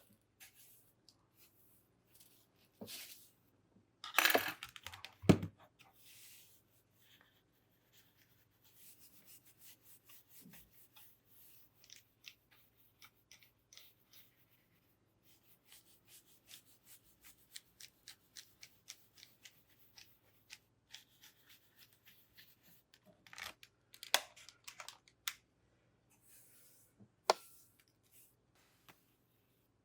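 Keyboard being cleaned with its keycaps off: a loud bout of rustling and scraping about four seconds in, then scattered small clicks and ticks, more rustling near the end and one sharp click.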